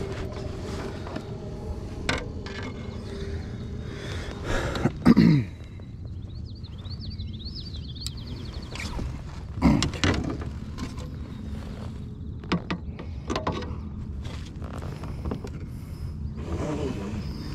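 Baitcasting rod and reel being worked from a kayak: scattered mechanical clicks and creaks, with two louder whirs that fall in pitch about five and ten seconds in.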